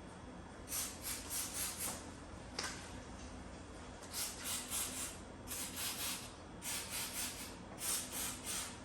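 Repeated hand scraping strokes against a hard surface, in short runs of three or four quick back-and-forth strokes with brief pauses between.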